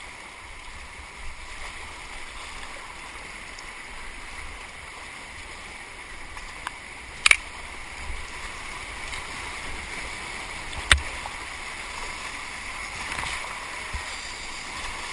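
Fast brown floodwater rushing through river rapids around a kayak: a steady rush that grows louder over the last few seconds as the boat enters rougher water. Two sharp knocks stand out, one about seven seconds in and one about eleven seconds in.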